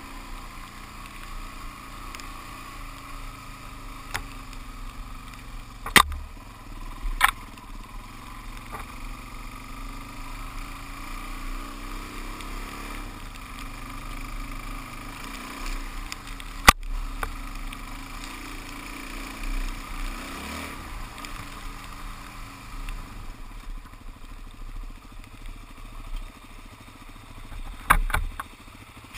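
Suzuki DR-Z400S dual-sport motorcycle's single-cylinder four-stroke engine running steadily while riding a dirt forest road. A few sharp knocks cut through it, the loudest about halfway.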